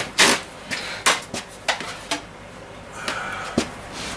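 A series of knocks and clatters from a snooker cue and tools being handled on a workbench. The loudest come in the first half-second and again near the end.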